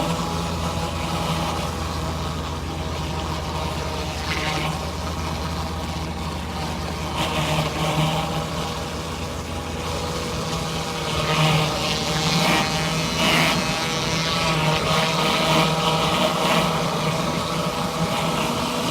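Pressure washer engine running steadily while a surface cleaner sprays concrete, the water hiss swelling and fading several times.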